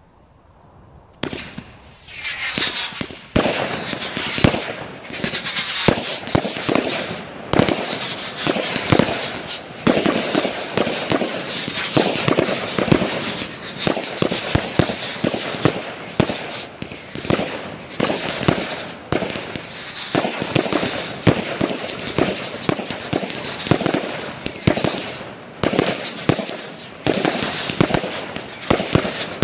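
Angry Tigers 100-shot firework barrage cake firing: a rapid, unbroken string of launches and bursting reports, several a second, starting about a second in, with a high wavering whistle running through.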